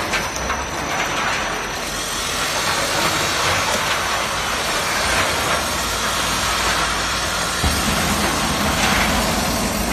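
Electronic-component fire-dismantling machine running: a steady, dense mechanical noise from its drum and sieve screen carrying scrap components. A deeper low rumble joins about eight seconds in.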